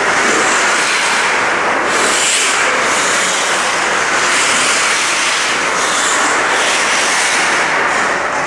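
Steady rushing noise of an indoor ice rink, with several hissing scrapes of hockey skate blades cutting and stopping on the ice, one every second or two.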